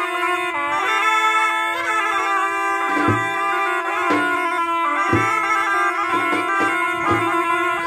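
Balkan folk wind-instrument music: a piercing reedy melody over a steady held drone, with a deep bass drum striking about once a second from about three seconds in.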